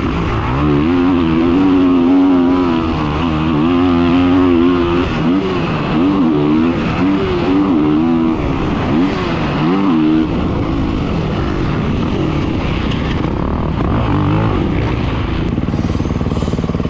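2023 Kawasaki KX450SR's single-cylinder four-stroke engine being ridden hard on a motocross track, its note rising and falling with throttle and gear changes. After about ten seconds it settles to a steadier, lower running note as the bike slows.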